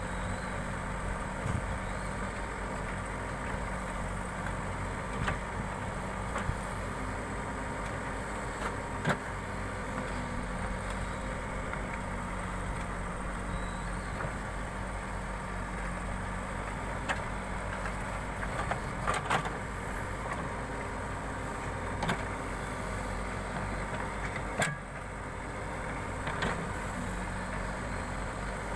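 Backhoe loader's diesel engine running steadily, with a few sharp knocks and clanks scattered through.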